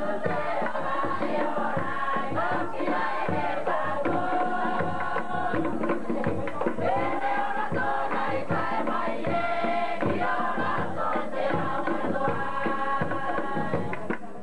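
Cook Islands drum-dance music: many voices singing and chanting together over a fast, steady beat of drums, dropping away at the very end.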